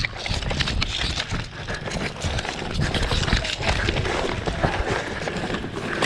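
Footsteps of someone running over the ground, a dense irregular pounding, with the rustle and knock of carried gear.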